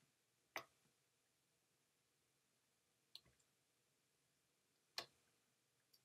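Near silence broken by a few sharp clicks from working a computer mouse and keyboard, about three of them, spread a couple of seconds apart, with a fainter one near the end.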